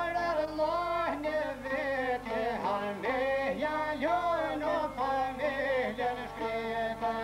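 Two men singing an Albanian folk song together in high, ornamented voices, with sliding, wavering notes, to the plucked accompaniment of two long-necked two-stringed lutes (çifteli).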